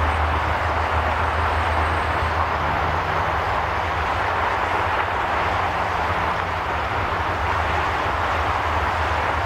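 Rolls-Royce Trent 1000 jet engines of a Boeing 787 Dreamliner running at taxi power as the aircraft turns onto the runway: a steady noise with a low hum underneath.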